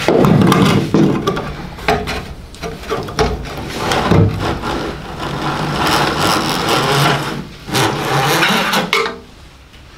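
Scraping and rubbing as a part and a cable are worked loose and pulled out through a car's engine-bay bulkhead, with small knocks and clicks.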